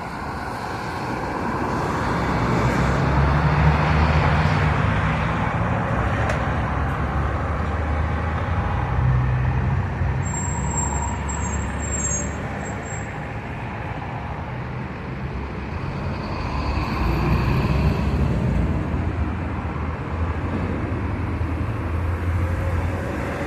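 Road traffic passing close by: cars and a bus going along the street, their engine rumble and tyre noise swelling and fading as each vehicle passes. A thin high-pitched squeal sounds briefly about halfway through.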